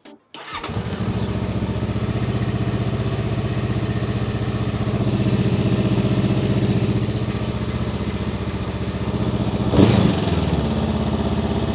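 Honda Rebel 500's parallel-twin engine starting about half a second in and then idling steadily, with a brief louder burst about ten seconds in. It starts and runs normally: the newly fitted battery lead has not damaged the electrics.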